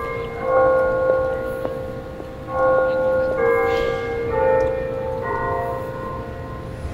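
Bells chiming in a slow sequence, a new stroke about once a second, each ringing on over a low rumble.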